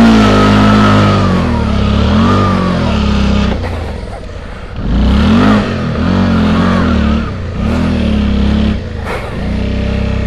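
Suzuki V-Strom motorcycle's twin-cylinder engine revving up and down in repeated short bursts as the throttle is opened and closed, with a brief drop in revs about four seconds in.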